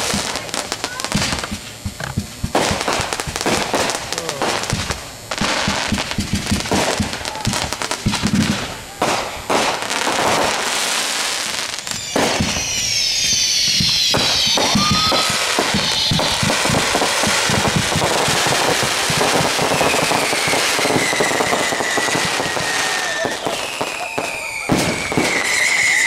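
Consumer fireworks going off: rapid volleys of pops and crackles for about the first twelve seconds, then a dense continuous crackle. Whistling fireworks with pitch falling cut through it about twelve seconds in and again near the end.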